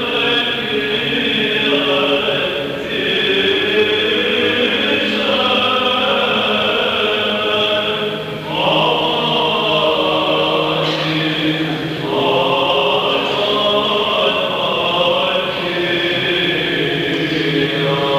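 Two male voices singing Greek Orthodox Byzantine chant. Long, slowly ornamented melodic lines run over a steady low held drone (the ison), with the phrase shifting every few seconds.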